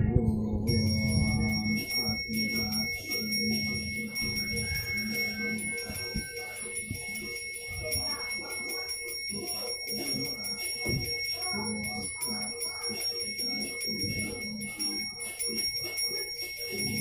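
Genta, the Balinese priest's brass hand bell, rung without pause so that its high ring sounds continuously, as a pemangku blesses the offerings (ngastawa upakara).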